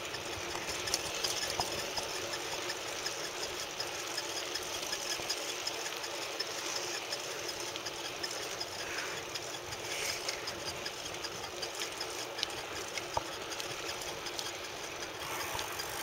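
Mongoose bicycle being ridden on a paved path: steady rolling and drivetrain noise, with squeaking from the tyre rubbing on the brake block as the rider pedals.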